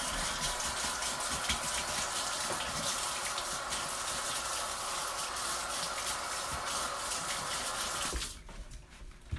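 Kitchen tap running full as metal tongs are rinsed under it, with a few light clicks of the tongs in the stream. The water shuts off about eight seconds in.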